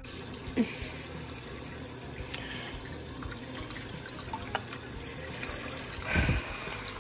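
Bathroom sink tap running, water pouring into the basin, with a brief louder burst of sound about six seconds in as something goes under the stream.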